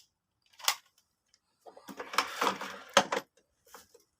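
Handling noise: a single click, then a short stretch of clattering and rustling with sharp clicks, and a few faint knocks near the end.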